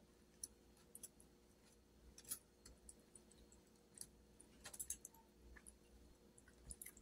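Near silence broken by faint, scattered clicks and taps of a plastic fork picking food from a foam takeout container, with a small cluster of them about five seconds in.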